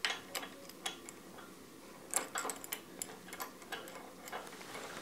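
Irregular light clicks and taps, about a dozen, from hands handling the metal parts of a reel mower cutting unit.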